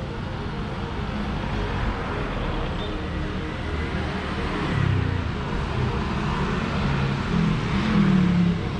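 Street traffic: cars and motorbikes passing on a busy town road, with a louder vehicle going by about five seconds in and again near the end.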